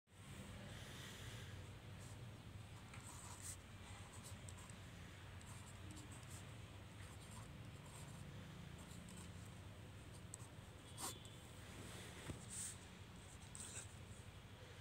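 Ballpoint pen writing numbers on notebook paper: faint scratchy strokes with a few sharper taps of the pen near the end, over a low steady hum.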